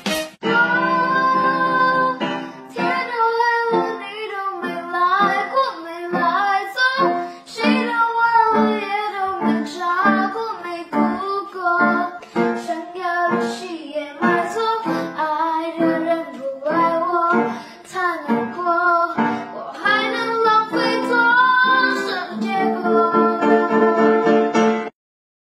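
Background music: a song with a singing voice over plucked guitar, stopping abruptly near the end.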